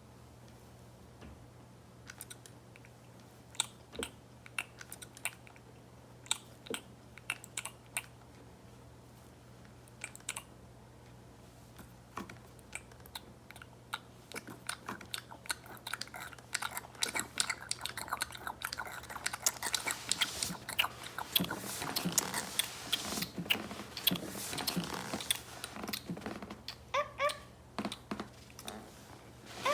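Crunching and clicking from a toy puppy being fed, sparse at first and growing dense and continuous about halfway through. A short pitched yelp-like sound comes near the end.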